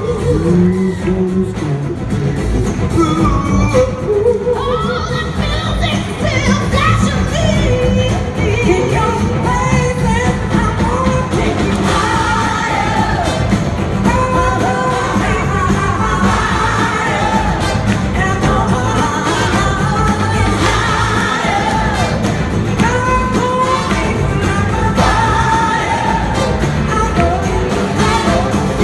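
A full live band of drums, electric guitars and a horn section plays an up-tempo soul-rock song while voices sing over it, recorded from within the audience in a large hall.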